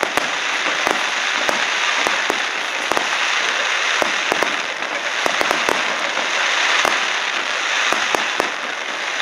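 Aerial fireworks bursting: many sharp pops over a dense, steady crackle.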